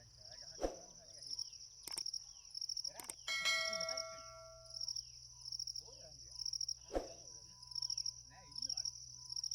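Insects chirping in steady, regular pulses. About a third of the way in there is one metallic clang that rings and fades over a second or so. A sharp knock comes early on and another near the end.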